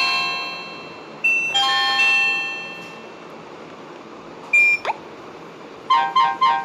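Nokia 105 mobile phone ringtones: a bell-like chime melody ends on two ringing chords that fade out. About five seconds in, a short beep and a quick rising sweep lead into another ringtone, a fast repeating note pattern of about four notes a second.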